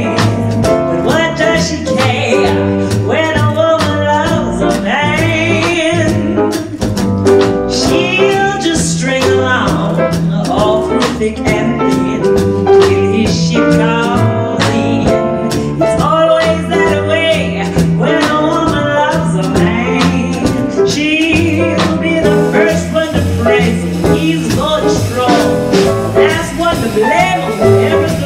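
Jazz-blues ballad: a woman singing with vibrato, accompanied by piano and upright bass.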